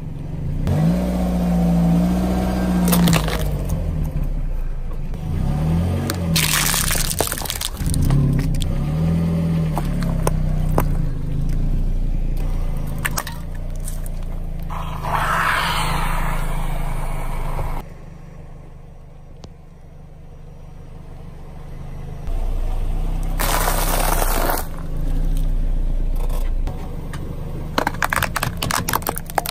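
Peugeot car creeping forward over objects on asphalt, its engine running with a low hum that rises and falls, and crunching, cracking and scraping as the tyre crushes vegetables and then a plastic toy pistol, with a quick run of sharp plastic cracks near the end.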